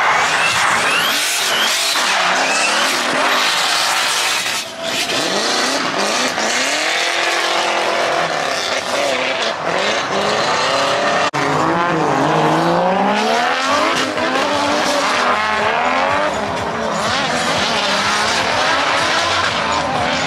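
Drift cars sliding around the track, engines revving up and down hard over a constant tyre squeal.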